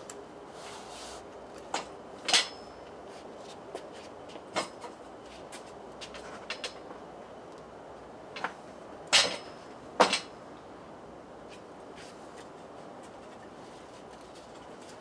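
Scattered sharp clicks and knocks as the partly dismantled BMW K75 motorcycle is handled by its front end and handlebars, the two loudest about nine and ten seconds in.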